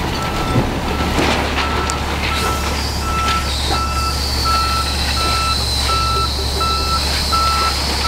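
A vehicle's reversing alarm beeping evenly, a little under twice a second, over the steady low rumble of an idling truck engine. A thin high whine comes in about three and a half seconds in and holds.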